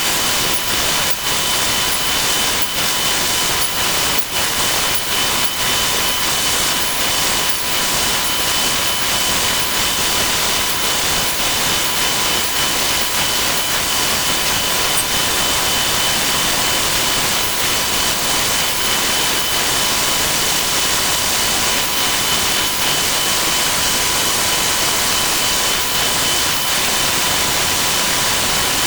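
Woodworking shop sounds sped up about twelve times, blurring into a dense steady hiss with two steady whining tones, and rapid knocks and clicks through the first several seconds.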